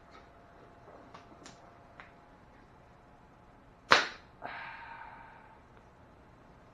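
Faint scattered clicks of hand tools working on metal, then a sharp metallic clack about four seconds in, followed by a second clack and a short ringing rattle that dies away.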